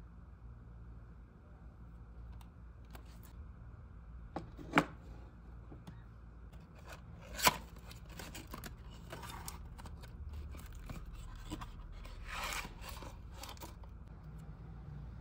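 A cardboard hair-dye box being opened by hand: two sharp snaps a few seconds apart as the flaps are pulled open, then cardboard and plastic rustling and scraping as the contents are taken out.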